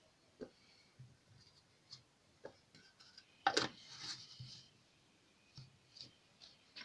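A few light clicks and taps of a bottle and kitchen utensils being handled, with one sharper knock about three and a half seconds in.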